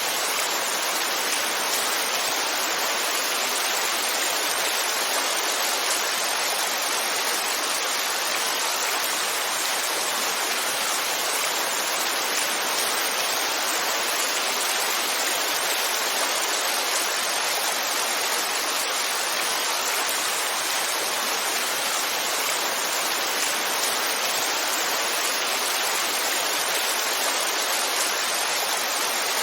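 Heavy rainfall as a steady, even hiss with no distinct drops or changes.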